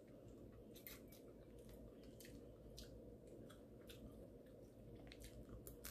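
Faint chewing, with scattered soft clicks and squishes as snow crab leg shells are cracked and peeled by hand.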